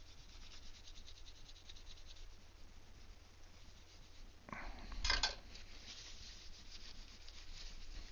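Fast, faint rubbing strokes as tape residue is scrubbed off the back of an iPod, with a louder scrape about five seconds in.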